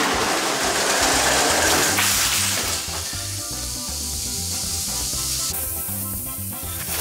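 Background music with a steady bass line, under a loud hissing noise that cuts off sharply about five and a half seconds in.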